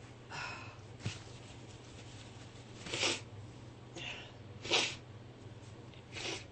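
A person in a sneezing fit: three sharp sneezes about a second and a half apart, each drawn in with a catching breath. The fit is uncontrollable: the sneezes won't stop.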